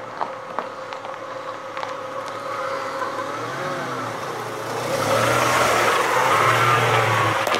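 A 1997 Ford Mustang with a freshly swapped engine running at low speed as the car rolls slowly up to the microphone and over it. The engine grows louder about five seconds in, as the car passes close overhead.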